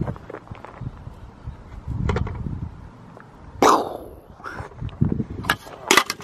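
Several sharp knocks and clanks, the loudest about three and a half seconds in with a brief ring, then a few more near the end, over low bumping and rustling.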